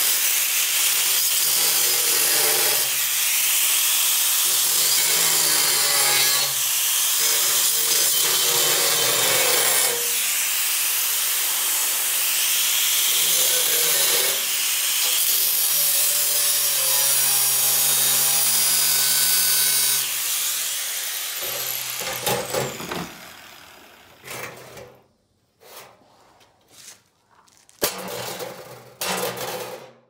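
Angle grinder with a cut-off wheel cutting through a steel sawmill blade: a steady, loud grinding for about twenty seconds, after which the grinder is let off and winds down. A few sharp metal knocks follow near the end.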